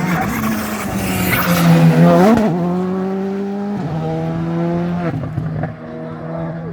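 Rally car engine at full throttle, its pitch climbing and then dropping with quick upshifts about two and a half, four and five seconds in. It is loudest around two seconds in and eases off near the end.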